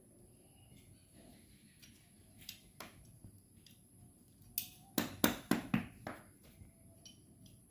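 Work noises from repairing a sandal sole: a few scattered knocks, then a quick run of sharp clicks and short scrapes about five seconds in.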